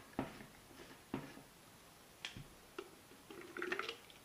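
Umoro all-in-one plastic water bottle being handled and unpacked: a few sharp clicks and taps of plastic parts, then a short rustle of handling near the end.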